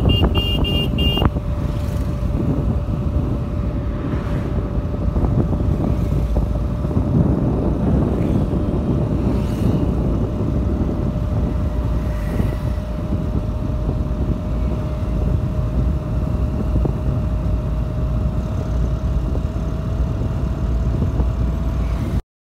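Heavy wind buffeting and road noise with a steady engine hum from a motorcycle being ridden at speed on a highway. A quick series of short horn beeps sounds in the first second, and the sound cuts off abruptly near the end.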